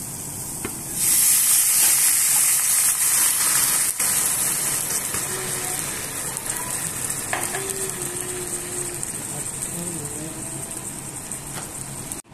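Rice, onion and red pepper sizzling in a hot frying pan. About a second in, chicken broth is poured in and the sizzle jumps to a loud hiss, then slowly dies down as the liquid takes up the heat.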